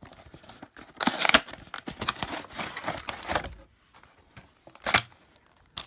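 Clear plastic wrapping crinkling and rustling in irregular bursts as it is handled, loudest about a second in, with one more sharp crackle near the end.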